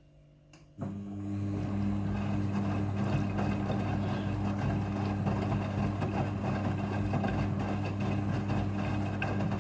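Midea front-loading washing machine's drain pump switching on about a second in: a steady electric hum with a rushing noise over it, holding level without rising in pitch.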